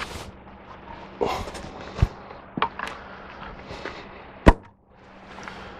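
Steel parts being handled and knocked against the sawmill frame while stoppers are set up for welding. There are several separate sharp metal knocks, the loudest about three-quarters of the way through, over a faint steady hum.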